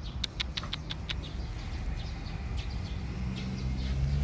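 A dachshund puppy growling low and rough while tugging and playing with a plush toy, with a quick run of small clicks in the first second.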